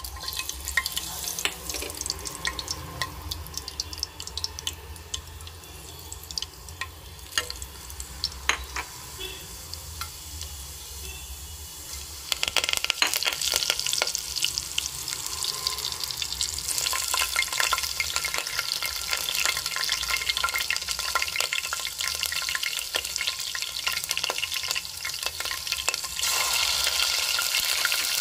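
Whole spices frying in hot oil in a pressure cooker, with a steady sizzle and many small crackles and pops. The sizzling gets louder and denser about twelve seconds in and again near the end.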